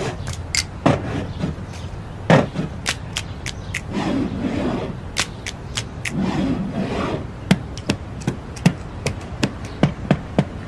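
Percussion break of a song played on glass Coke bottles: a run of sharp taps and clicks, with two softer rushes of noise near the middle.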